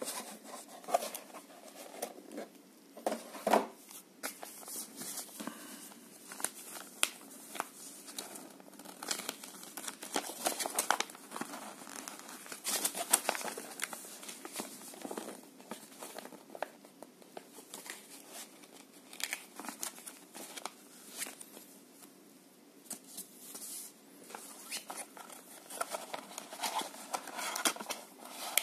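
Hands handling paper and cardboard packaging: a folded paper instruction leaflet rustling as it is leafed through, and a small cardboard box with plastic-wrapped contents crinkling as it is opened, with many short, scattered rustles and clicks.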